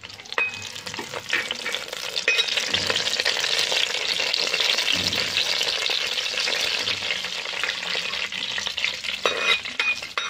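Curry leaves and dried red chillies sizzling and crackling in hot coconut oil, starting abruptly as they hit the oil, with a metal spoon stirring and scraping them around the clay pot.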